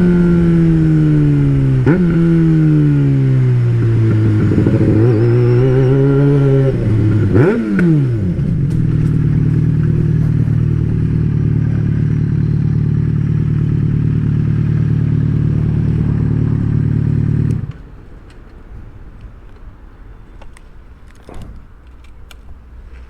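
Yamaha XJ6's 600 cc inline-four engine slowing down, its pitch falling, then a quick rev that rises and falls. It then idles steadily for about nine seconds and cuts off suddenly, as when the engine is switched off, leaving a few faint clicks.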